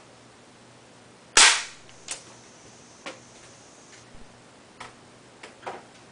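A single shot from an airsoft BB gun, one sharp crack about a second and a half in, followed by a few much lighter clicks and knocks.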